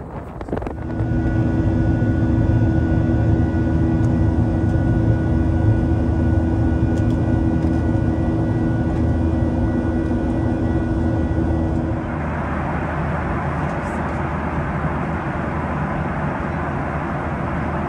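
Jet airliner engine noise heard inside the cabin: a steady low drone with held whining tones. About twelve seconds in it changes to a broader, even rushing roar.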